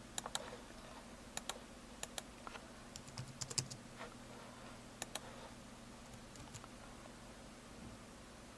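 Faint, scattered clicks of a computer keyboard and mouse, singly and in small clusters with pauses between, over a low steady hum.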